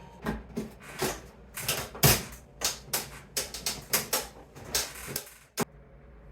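Rapid, irregular clicks and light knocks, several a second, ending with one sharp click near the end.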